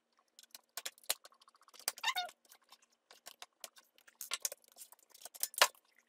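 Screwdriver undoing the screws of a plastic laptop base, in sped-up footage: a scatter of quick clicks and short high squeaks.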